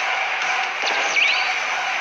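Soundtrack of a fan-made manga video playing: a steady, hissing, noisy wash with a few quick rising whistle-like glides about a second in.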